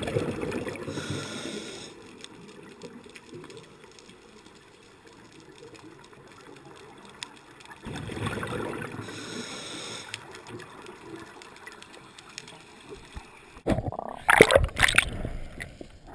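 Scuba diver's exhaled bubbles from the regulator, heard underwater through a waterproof camera housing: two bursts of bubbling about eight seconds apart, with quieter water between. Near the end comes a cluster of loud knocks and splashes.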